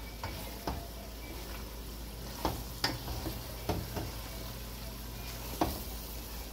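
Wooden spatula stirring a thick pigeon curry in an aluminium pot, knocking and scraping against the pot several times over the low sizzle of the simmering gravy.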